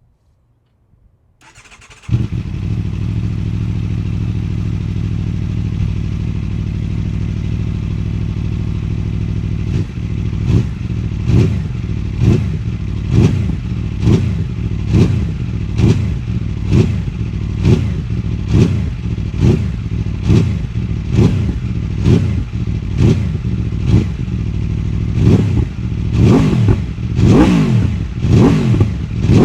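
Aprilia RSV4's V4 engine through an SC-Project SC1-R titanium and carbon slip-on exhaust with the dB killer removed. It is started about a second and a half in, idles steadily, then from about ten seconds in is blipped with the throttle about once a second, the revs climbing higher near the end.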